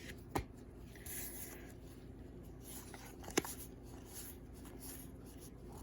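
Baseball cards being handled: soft sliding and rubbing of card against card as a pack is flipped through, with two light clicks, one just after the start and one about three seconds later.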